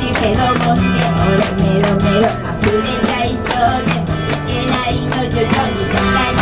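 A woman singing karaoke into a microphone over a backing track with a steady beat and bass line.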